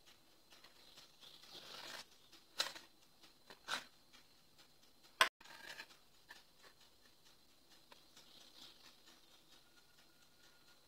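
Faint handling noises of hands working soft cookie dough in a plastic bowl, with three light knocks in the first half.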